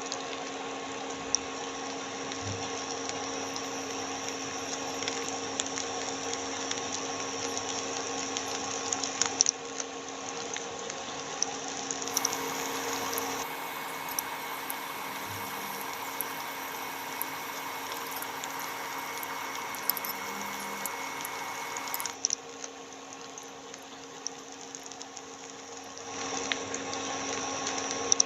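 Potato, onion and egg omelette frying in oil in a pan, sizzling with scattered small crackles over a steady hum. The sound changes abruptly twice, about twelve and twenty-two seconds in, and drops quieter for a few seconds before picking up again near the end.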